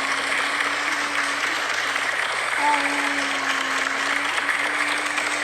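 A crowd applauding: steady, dense clapping, with a faint low note held beneath it that breaks off and resumes.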